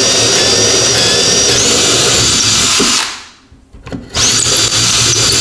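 Power drill boring a bolt hole through a boat console. It runs for about three seconds, its whine stepping up in pitch partway through. It stops, then starts again about a second later.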